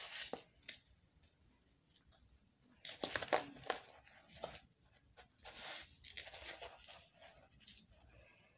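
Dry breadcrumbs rustling and crunching under fingers in a plastic tub as a piece of egg-dipped bread is pressed and turned in them. It comes in short gritty bursts, louder about three seconds in and again from about five and a half seconds.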